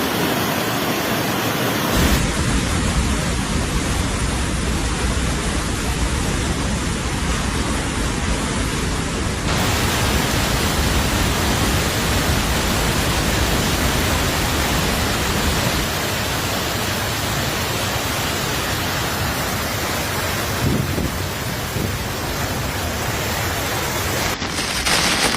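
Steady rushing noise with a strong low rumble, changing abruptly in character about 2 seconds and about 10 seconds in.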